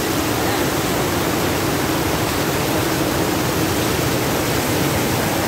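Fast mountain-river water rushing and spilling over the bamboo slats of a traditional fish-trap weir: a steady, dense rush of white water.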